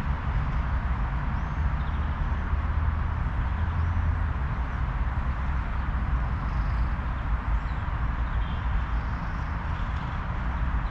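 Wind blowing across the microphone, a steady rush with a rumbling low buffet, with a few faint bird chirps high above it.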